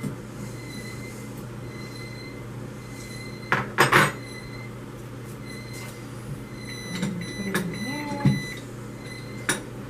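Kitchen handling noises: a cluster of sharp knocks about four seconds in, then a few lighter knocks and clicks, over a steady background hum.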